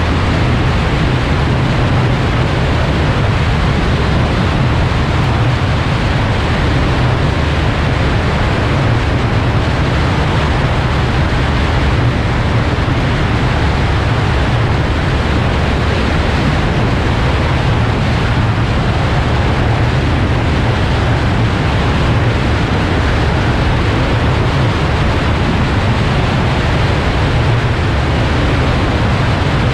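Cessna 172 in cruise flight: a steady low drone of engine and propeller under loud, constant wind rush on the wing-mounted camera's microphone.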